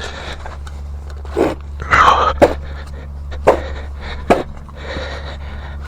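Tire being worked and straightened on a small dirt-bike rim: sharp knocks about a second apart, three in all, with strained grunts of effort just before the first. A steady low hum runs underneath.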